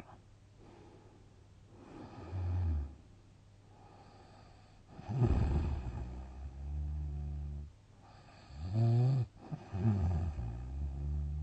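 A sleeping person snoring: four snores, two to three seconds apart. The longer ones carry a steady low drone, and one short snore near the middle has a rising pitch.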